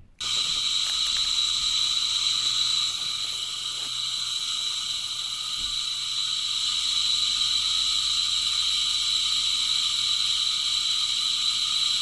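Furnace draft inducer's shaded-pole motor running free on the bench without its squirrel cage. It gives a steady, high-pitched squeal over a low electrical hum and comes on suddenly. The squeal is the sign of its worn front bearing, the one that gave out.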